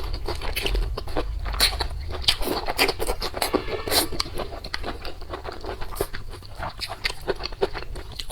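Close-up eating sounds: chewing with many irregular clicks and crunches.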